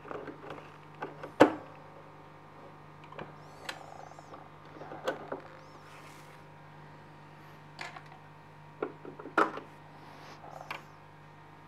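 Scattered clicks, taps and light rustles of hands handling thread at a sewing machine's needle and presser foot, the sharpest click about a second and a half in and another cluster near the end, over a faint steady low hum.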